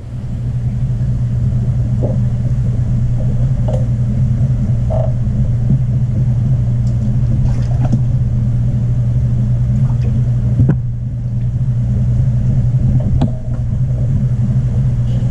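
Steady low hum and rumble of the aquarium's water circulation, heard underwater, with a few faint clicks and taps scattered through it. It comes in abruptly at the start and dips briefly about two-thirds of the way through.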